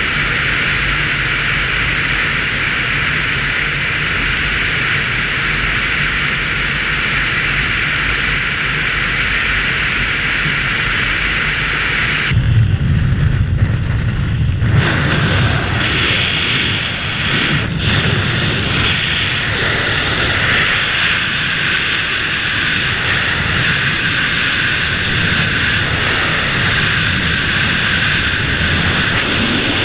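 Steady rush of wind noise from airflow buffeting the camera microphone on an SZD-9 Bocian glider in flight. About twelve seconds in, the sound changes abruptly to a rougher, lower rumble.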